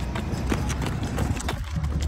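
Footfalls of two runners' shoes striking the asphalt as they pass close by, a quick series of sharp slaps over a low steady rumble.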